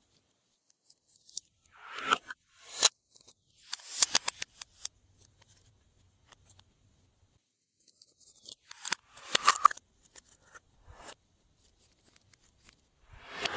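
Hands working slime: a few short bursts of wet crackling and squishing with quiet pauses between them.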